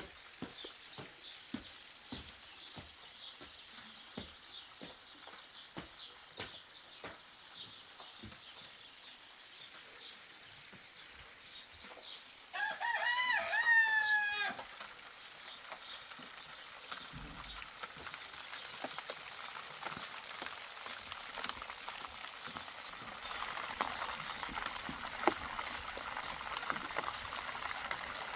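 A rooster crows once, about two seconds long, about halfway through, over rain pattering and dripping with many sharp ticks; the rain grows denser near the end.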